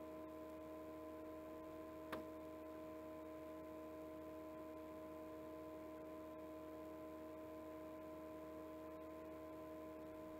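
Steady room hum made of several fixed tones, with a single short click about two seconds in.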